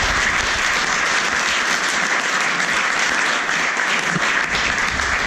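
A roomful of people applauding steadily, a dense patter of many hands clapping.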